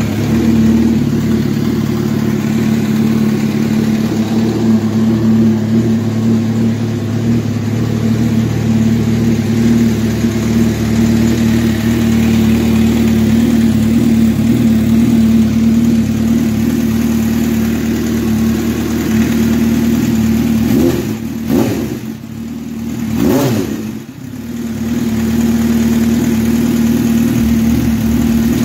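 Motorcycle engine idling steadily, revved twice about three-quarters of the way through, the pitch rising and falling back each time.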